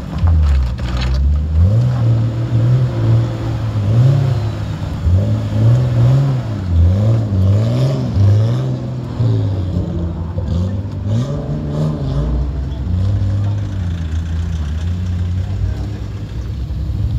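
Nissan Skyline R34 saloon's engine revved again and again as it drives off, the revs rising and falling about once a second for the first ten seconds or so, then settling into a steadier note as the car pulls away.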